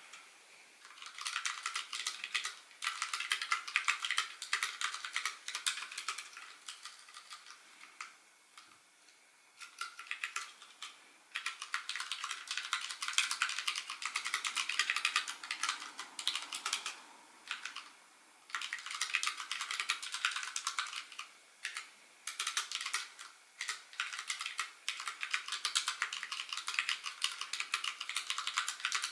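Rapid, light clicking in bursts of several seconds, broken by short pauses.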